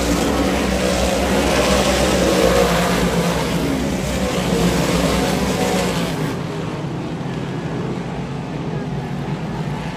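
A field of dirt-track modified race cars running hard on the track, their engines blending into one dense, steady drone. It turns quieter and duller about six seconds in.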